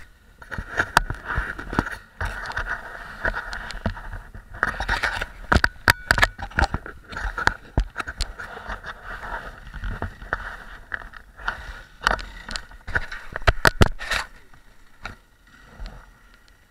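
Close scraping and rustling with many sharp clicks and knocks: handling noise rubbing at a helmet-mounted camera. It dies down about fifteen seconds in.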